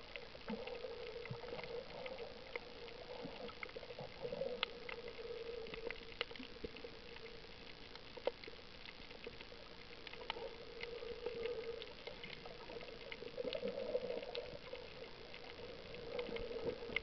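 Underwater sound picked up through an action camera's waterproof housing: scattered sharp clicks and crackles over a muffled hum that swells and fades every few seconds.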